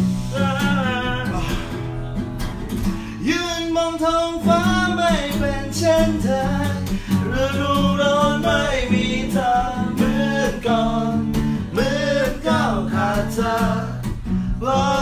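A man singing a song to an acoustic guitar, the voice rising and falling over held guitar chords.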